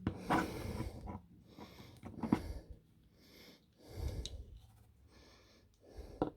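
Plastic Transformers action figure being handled and twisted between transformation steps: rubbing of the parts with a few sharp clicks of the joints, mixed with breaths close to the microphone.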